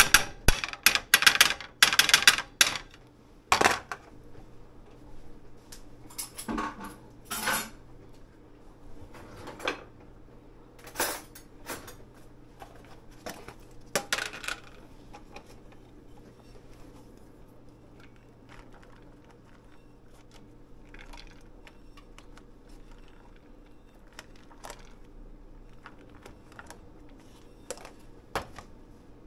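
A metal fork scraping and clinking rapidly against a plate, scraping food off it, for the first few seconds. Then scattered clinks and knocks of the fork, plate and frying pan that thin out, with a faint low hum behind.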